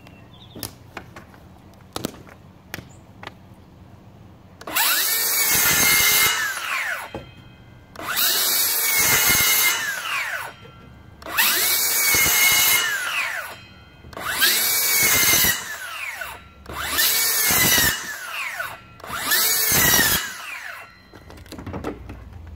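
DeWalt Flexvolt 60V DCS575 cordless circular saw making six short cuts into an OSB board, each a loud burst of about two seconds with a motor whine that bends in pitch as the blade loads up in the wood. A few sharp handling clicks come before the first cut.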